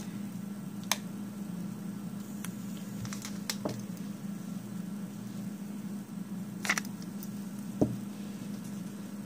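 Nail-art stamping tools handled on a table: a few light clicks and taps and one short scrape a little before the end, as polish is scraped across a metal stamping plate and stamped onto paper, over a steady low hum.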